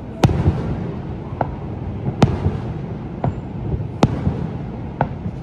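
Fireworks shells bursting: three loud bangs about two seconds apart, with a fainter pop between each, over a steady low rumble.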